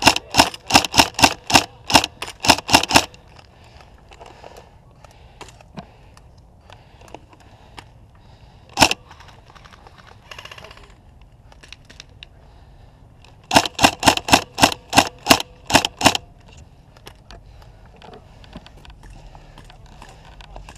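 Tokyo Marui High Cycle AUG electric airsoft gun shooting sharp repeated shots, about four a second, in two strings of two to three seconds each with a single shot between them.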